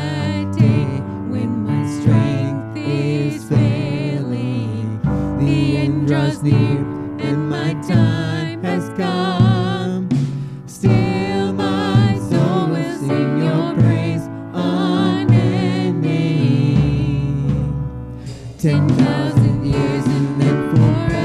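Live worship band playing a song: piano and drum kit under a woman and a man singing into microphones, with a brief quieter passage near the end.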